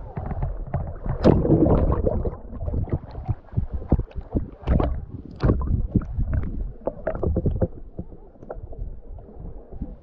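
Water splashing and sloshing in irregular bursts, with sharp knocks, loudest about a second in.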